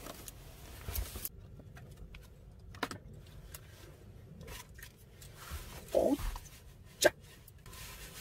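Packaging of a self-heating meal kit being torn open and handled: scattered crinkles and light taps, a short squeak about six seconds in and a sharp click about a second later as a plastic water bottle is picked up.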